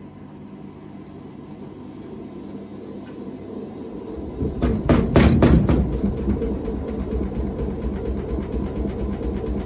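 Hoover VHD 9163 ZI washing machine on spin, the drum hum rising as it speeds up, then about halfway through it breaks into a loud rumble with a quick run of knocks and keeps rumbling and rattling. The noise comes from broken drum bearings.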